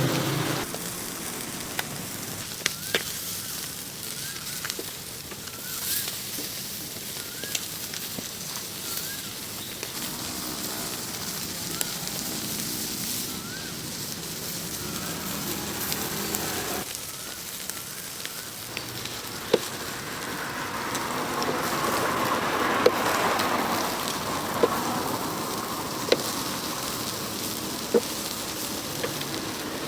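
Charcoal fire crackling and sizzling under grilling chicken, with sharp pops every second or two in the second half and a swell of hiss about two-thirds of the way through.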